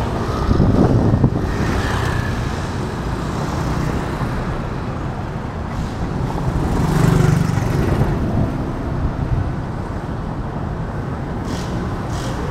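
Street traffic: steady road noise with vehicles passing, swelling about a second in and again around seven seconds.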